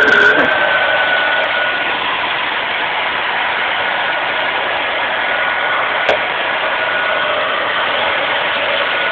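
Vacuum cleaner running steadily with a high, steady whine over its motor noise. There is a brief click about six seconds in.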